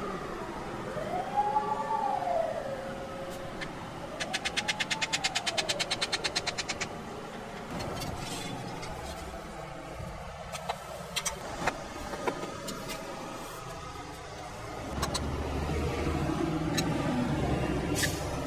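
A siren wails twice, rising and falling. Then comes a fast, even run of knife strokes on a cutting board, about ten a second for three seconds, as a banana is sliced, followed by scattered clicks and, near the end, the scraping of a metal spatula spreading Nutella over a crepe on the griddle.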